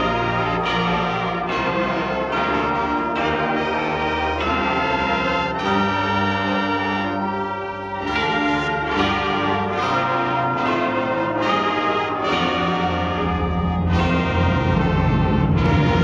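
Indoor winds ensemble playing a brass-heavy passage of held chords that change every second or so, heard in a large arena.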